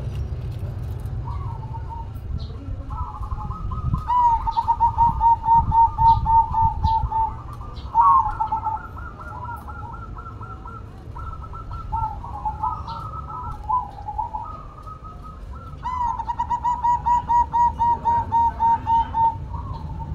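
Zebra doves (perkutut) cooing: two long runs of short, evenly spaced coos at about four a second, each lasting about three seconds, with looser, softer coos in between.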